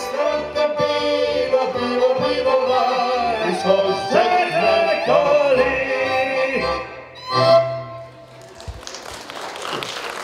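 A small folk band of violin, accordion, double bass and trombone, with a man singing, plays the end of a song and stops on a loud final note about seven and a half seconds in. Applause follows.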